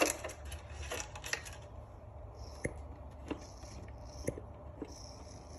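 Light clicks and taps of small hard parts being handled, several of them spaced roughly a second apart, over a faint steady hum.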